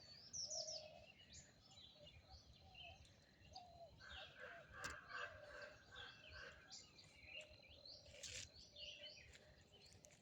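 Faint chirps and calls of several wild birds, short and repeated throughout, with a couple of soft snaps or rustles about five and eight seconds in.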